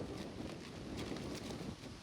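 Gusty wind buffeting the microphone with a low rumble, with light plastic raincoat fabric fluttering and rustling in the gusts.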